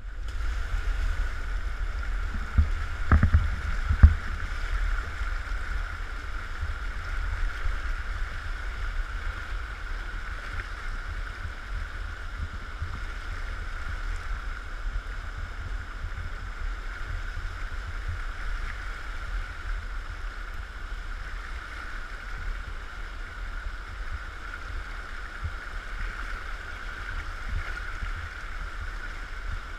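Fast river current rushing and splashing steadily, with a low rumble of wind on the microphone. A few sharp knocks come about three and four seconds in.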